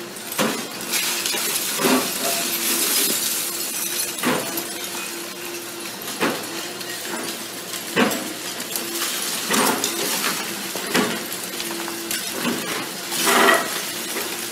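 A Doosan tracked excavator tearing into a brick-and-concrete building: repeated sharp cracks and crashes of masonry breaking and rubble falling, a loud crash near the end, over the faint steady hum of the machine.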